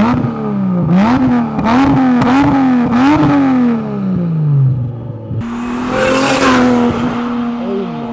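Toyota Supra MK4 turbocharged straight-six revved in a series of quick blips, its pitch jumping up and sagging back about five times, then dropping to a steady idle. A burst of hiss rises over the idle about six seconds in.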